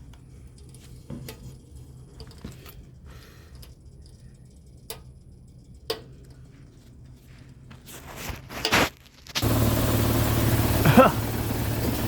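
Faint scattered clicks and rustling, then about nine seconds in a loud steady machine noise with a low hum cuts in: the attic indoor unit's blower running. The uploader says this blower is vibrating excessively and causing intermittent low control voltage.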